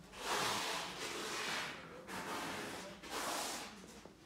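A person breathing close to the microphone: three rushing breaths, each about a second long.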